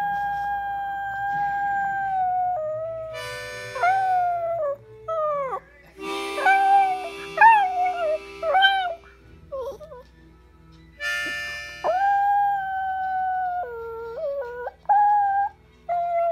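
A Pomeranian howling in drawn-out, tuneful notes. It holds one steady note for about two and a half seconds, then gives a string of shorter notes that waver and slide up and down. After a brief pause it holds another long note and ends with a few short wavering ones.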